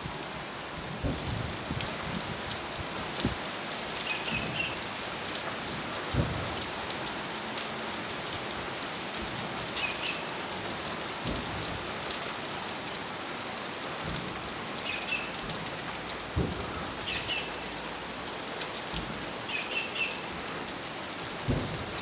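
Steady rain pattering, with several dull low booms at irregular intervals. The booms are unexplained: the recorder says they come only when it rains and are too rhythmic to be thunder.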